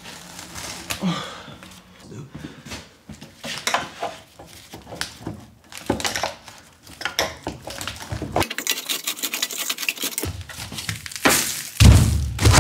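Telescoping sheet-steel way cover sections from a Haas VF mill scraping and clattering as they are worked apart by hand, with packed metal chips grinding in the joints. A heavier metal knock near the end as the cover is lifted and set on the bench.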